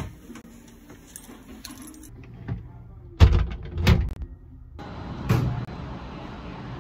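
Keys jingling by a metal locker, then a few heavy clunks and thuds of handling about three to five seconds in, followed by steady room hiss.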